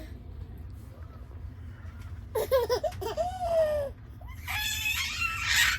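A ten-month-old baby vocalising: a few short giggling sounds about halfway in, then a louder high-pitched squeal near the end.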